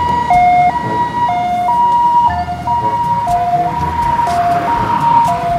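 Ambulance siren sounding a two-tone hi-lo pattern, switching between a higher and a lower note about once a second.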